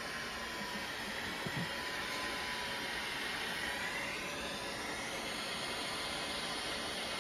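BGA rework station running: a steady rush of blowing hot air and fan noise with a faint whine. The air is reflowing a reballed PS4 APU onto its mainboard. A light tap comes about a second and a half in.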